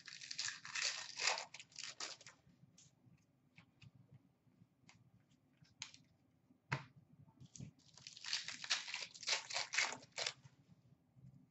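Upper Deck hockey card pack wrappers being torn open and crinkled, in two bursts of tearing about eight seconds apart, with scattered light clicks in between.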